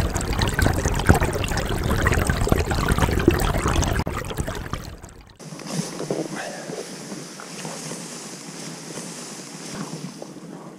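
Loud, irregular rushing noise of wind buffeting the microphone, which cuts off abruptly about five seconds in and gives way to a much quieter steady hiss with a few faint knocks.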